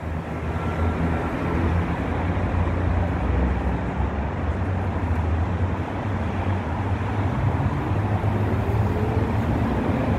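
V3A-93 articulated tram pulling away from the stop: a steady low hum of its motors and running gear, with a faint whine rising near the end as it picks up speed.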